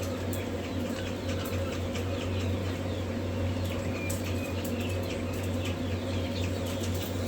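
Many newly hatched quail chicks peeping in a steady stream of short, falling chirps, over a steady low machine hum.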